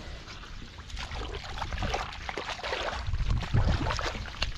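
Hands sloshing and squelching through shallow muddy water and wet straw, with irregular small splashes, a little louder about three seconds in.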